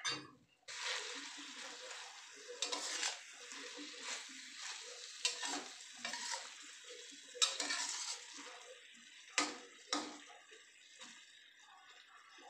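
Red chillies and garlic sizzling in oil in a stainless steel wok, stirred with a metal spatula that scrapes and clanks against the pan every second or so. A sharp knock comes right at the start; the sizzle sets in about a second in and eases near the end.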